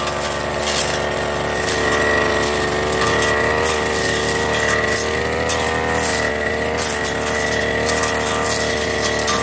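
Backpack brush cutter's engine running steadily at high speed, its pitch wavering slightly under load as the blade cuts through thick, dry cogon grass, with short crackles from the cut grass.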